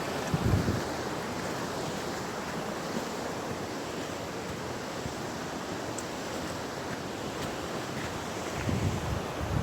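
Steady rush of fast-flowing water, with brief low rumbles of wind on the microphone shortly after the start and again near the end.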